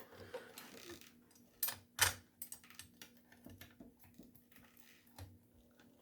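Light clicks and taps from handling a power tool, with two sharper clicks close together about two seconds in, then a run of small ticks.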